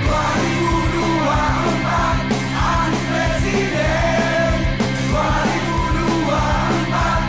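Rock music with a shouted, sung vocal over a steady bass and beat.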